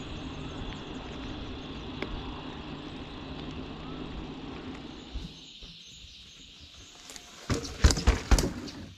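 A steady, low motor hum for about five seconds that then drops away, followed near the end by a quick cluster of loud, sharp knocks.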